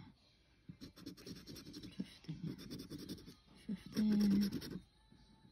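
A round scratcher token rubbed fast back and forth across a scratchcard, scraping off the coating in quick rapid strokes, starting about a second in and stopping near the end. A short hummed voice sound comes about four seconds in.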